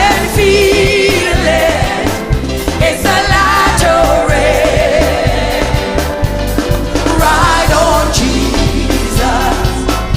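Gospel song: sung vocals, with a choir, over a band with a steady beat and bass.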